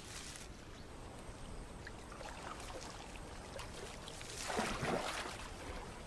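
Faint river-water ambience, with a brief louder rush of moving water about four and a half seconds in.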